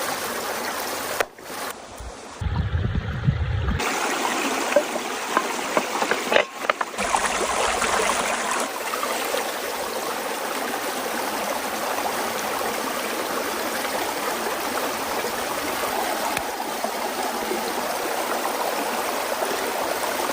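Steady rushing of a flowing stream, with a brief low rumble about three seconds in and a few abrupt cuts in the sound early on.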